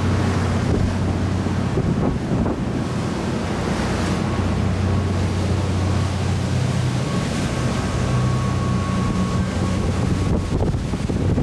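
High-speed ferry Koshikijima under way: a steady low engine drone under rushing water, with wind buffeting the microphone.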